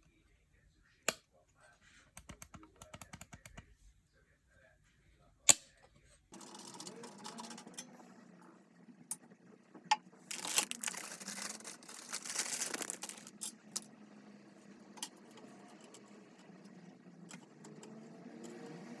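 Clicks and handling noises of computer parts being assembled: sharp single clicks, a quick run of small clicks, then a longer stretch of rustling.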